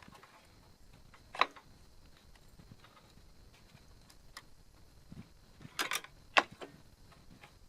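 A few sharp knocks and clinks of hand tools and motorcycle rear-suspension link parts being handled. There is a single one about a second and a half in, then a quick cluster a little before six seconds, with the loudest just after it.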